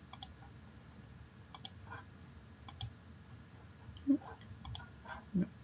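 Computer mouse clicking: about four separate clicks spread out, each a quick double tick of press and release. There are a couple of brief low murmurs in the second half.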